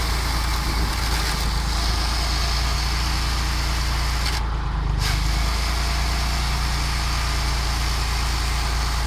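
Tractor engine running steadily at a low, even speed, powering a homemade firewood-cutting machine, with a steady hiss over the hum; the hiss thins briefly about halfway through.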